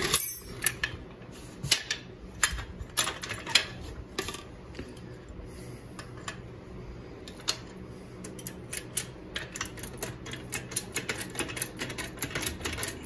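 Hydraulic floor jack being set under an ATV's rear axle and pumped to lift it: a series of sharp clicks and knocks, scattered at first and coming several a second over the last few seconds.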